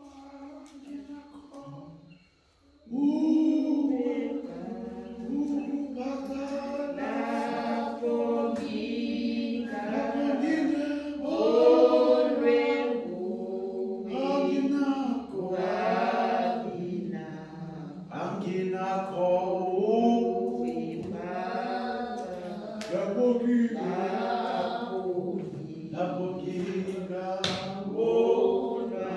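Congregation singing a hymn a cappella. A faint single voice starts it, and about three seconds in the full group of voices comes in loudly.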